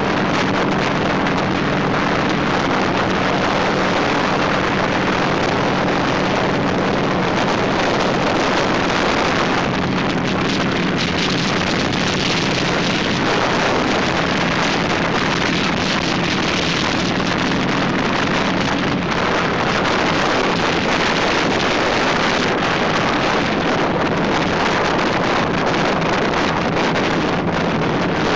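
Motorcycle engine running at a steady cruising speed, its low steady hum under heavy wind noise on the microphone.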